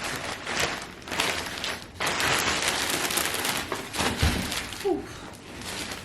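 Plastic and paper packaging rustling and crinkling as gift items are handled, with a few light knocks and a soft thud about four seconds in.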